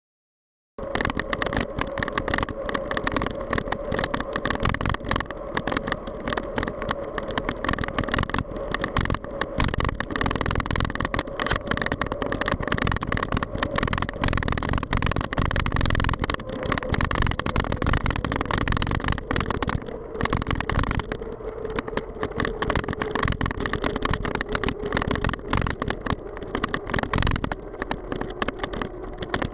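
Wind and road noise from a bicycle-mounted camera while riding along a road with car traffic, starting about a second in: wind buffets the microphone over a steady hum that slowly drops in pitch near the end.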